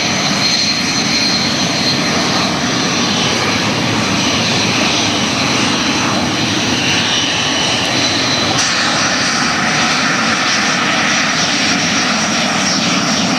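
SEPECAT Jaguar GR.1 jets taxiing past, their twin Rolls-Royce Turbomeca Adour turbofans giving a loud, steady jet whine with high whistling tones. The whistle changes about two-thirds of the way through.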